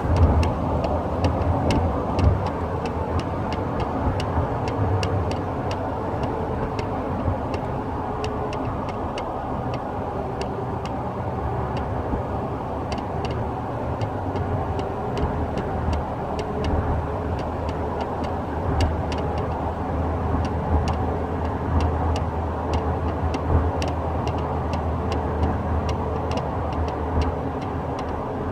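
Inside the cab of a 2013 Toyota Tacoma on the move, an irregular light rattle of small clicks comes from under the dash below the steering wheel on the driver's side. It sits over a steady low drone of engine and road noise. The cause of the rattle is not known.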